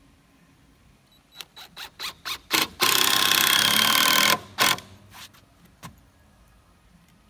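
Cordless drill driving a screw into a wooden deck board: a few short trigger blips to start the screw, then a steady run of about a second and a half, and one more short blip to seat it.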